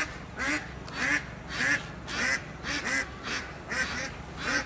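A bird calling over and over in an even series, about two short calls a second, each a rising-then-falling note.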